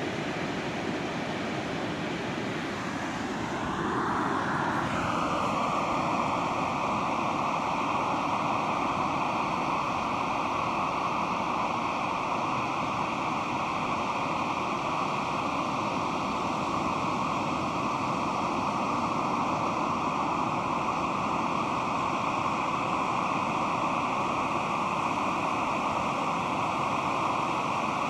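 Pacific Ocean surf: a steady wash of breaking waves rolling in, growing slightly louder about four seconds in and then holding even.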